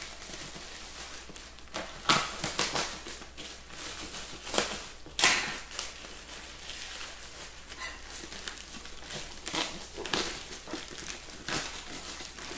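Black plastic mailer bag being slit with a knife and pulled open off a box: irregular crinkling and rustling of the plastic, with louder rustles about two, five and ten seconds in.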